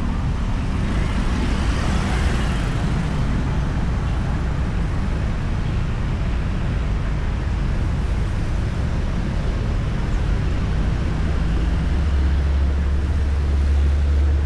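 Road traffic: steady tyre and engine noise from passing vehicles, with one vehicle swelling past about two seconds in and a deep engine rumble building near the end.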